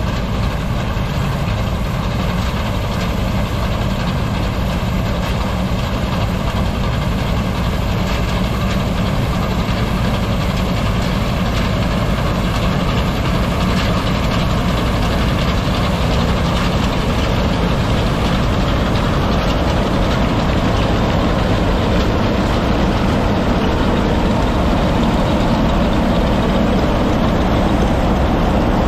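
Old combine harvester running while it harvests grain: the engine and threshing machinery make a steady mechanical noise that grows a little louder as the machine draws close.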